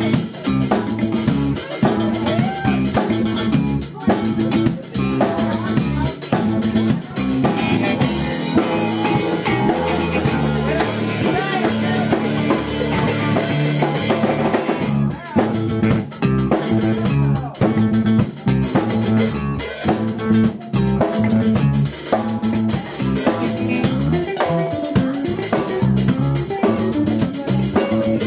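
A live band playing a song on drum kit and guitar, with a steady beat. The drum hits ease off into a more sustained stretch near the middle, then come back in.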